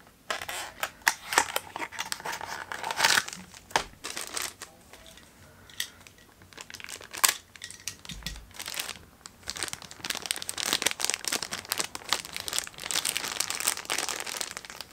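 Blind-box packaging handled and opened by hand: scattered rustles and clicks at first, then dense crinkling of the shiny black pouch inside the box over the last several seconds.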